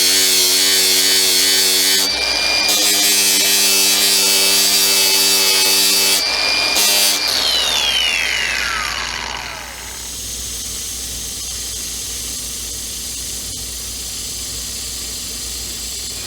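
Electric grinder running steadily with a high whine while grinding a weld smooth on sheet-metal trim, with two short breaks. About seven seconds in it is switched off and its whine falls away over about three seconds, leaving a quieter steady hiss.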